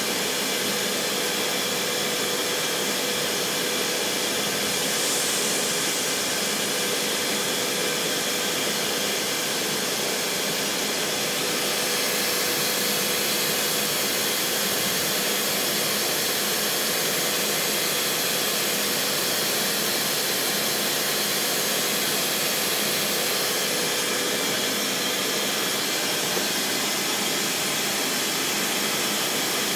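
Trak TMC7 vertical machining center running: a steady mechanical whir and hiss with a faint held whine.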